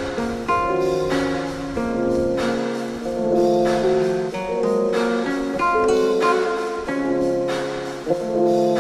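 Instrumental background music: sustained chords that change every half second or so over a steady beat of about one stroke a second.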